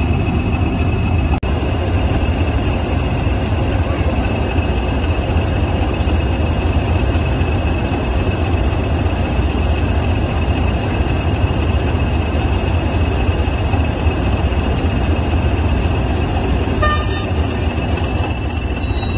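British Rail Class 20 diesel locomotive moving slowly past, its English Electric eight-cylinder diesel engine giving a steady low rumble with the high, steady whistle of its turbocharger over it.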